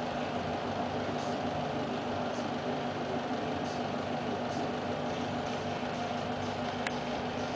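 A steady low mechanical hum with a hiss over it, unchanging, and a faint click about seven seconds in.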